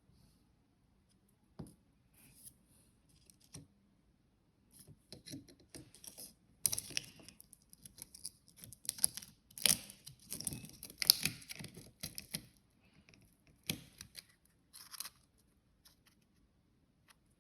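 Handling noise: scattered sharp clicks and crinkling, rustling bursts, busiest in the middle.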